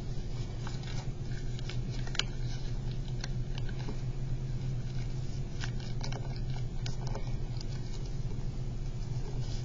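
Origami paper crinkling and rustling under the fingers as the folds are pressed flat, in irregular small crackles over a steady low hum.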